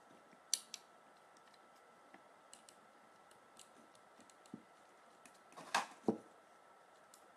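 Small clicks and taps of plastic armour pieces being handled and worked onto an action figure, with a sharper click about half a second in and a louder pair of clacks about six seconds in.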